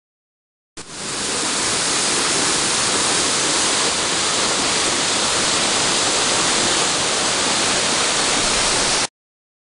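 Steady loud rushing hiss with no pitch or rhythm. It starts abruptly about a second in and cuts off suddenly near the end.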